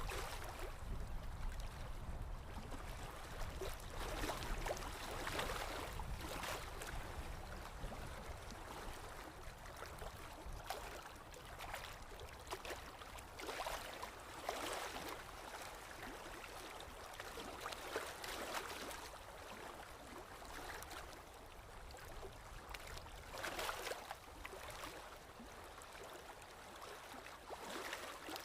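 Running water, a steady rushing that swells and eases every few seconds, with a low rumble underneath.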